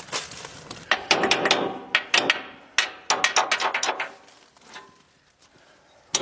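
A quick run of hammer blows and knocks on the machine, starting about a second in and stopping about four seconds in.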